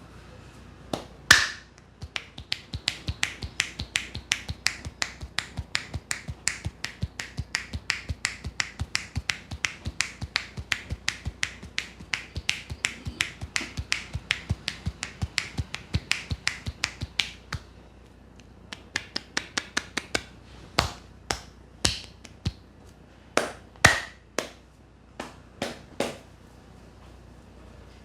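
Percussive head massage: hands striking the head in a fast, even run of sharp claps, about four a second, for some fifteen seconds, then a slower, uneven run of louder strikes. A single loud crack about a second in.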